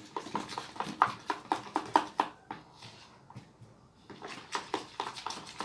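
A run of quick light taps or clicks, about five a second, stopping for about two seconds and then starting again more sparsely.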